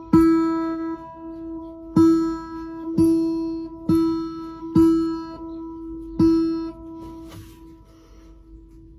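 Acoustic guitar strummed six times, each chord ringing on with the same held note underneath, then dying away near the end.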